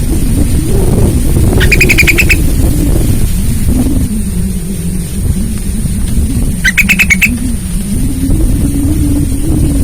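Sooty-headed bulbul (trucukan) giving two short, quick bubbly phrases, about two seconds in and again near seven seconds. A loud low rumble with a wavering hum runs underneath.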